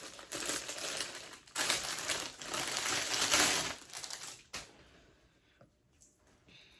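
Plastic packaging crinkling and rustling as it is handled and pulled open, a dense run of small crackles for about four and a half seconds, then only a few faint clicks.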